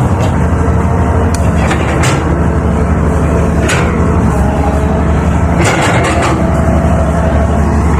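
A 320 excavator's diesel engine running steadily under work, with several sharp clanks and knocks along the way.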